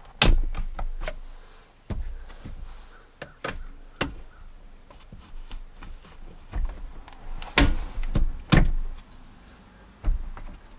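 Plastic twist-lock push clips being pressed and turned into the plastic lower bumper cover and fender liner: a series of irregular sharp clicks and knocks. The two loudest come about a second apart, roughly three quarters of the way through.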